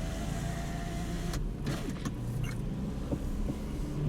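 Car running, heard from inside the cabin: a steady low engine and road rumble, with a faint whine over the first second or so and a few light clicks.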